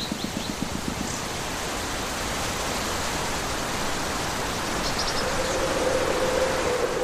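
Steady rushing noise, like wind or a designed ambience, slowly growing louder, with a few short high chirps like birds near the start and again about five seconds in. A steady hum-like tone comes in about five seconds in.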